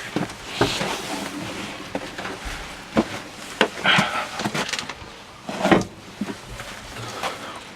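Irregular knocks, clicks and rustling from someone moving about and handling things in a pigeon loft, with a louder thud near the end.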